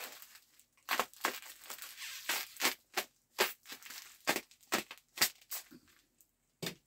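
Packaging being pulled and torn off a bundle of golf clubs: a dozen or so short, sharp rustles and snaps at irregular intervals.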